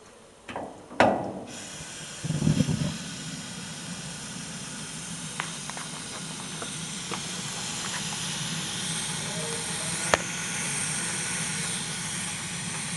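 Gas burner of a single-tank Olis LPG pasta cooker: a few loud clicks, then a sudden hiss about a second and a half in and a loud low rush a second later, as the gas comes on and lights. The burner then runs with a steady hiss, broken by a few sharp clicks.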